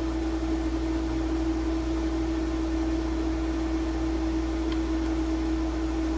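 Steady electrical hum over a constant hiss, with one faint click about four and a half seconds in.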